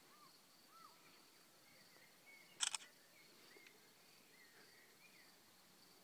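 Quiet outdoor ambience: a faint, steady, high insect trill with scattered soft chirps of small birds, broken about two and a half seconds in by a quick cluster of two or three sharp clicks.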